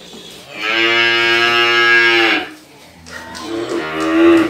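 Cattle mooing: a long moo lasting about two seconds, starting about half a second in, then a second moo that swells in loudness near the end.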